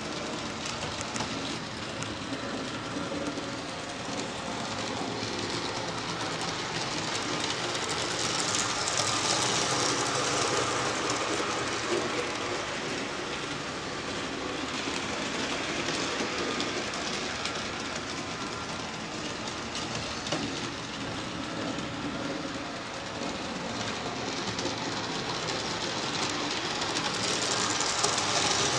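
HO scale model train running on its track: a steady rolling, clicking rattle of small wheels over the rails with a faint steady whine. It swells about eight to eleven seconds in and again near the end as the train passes close by.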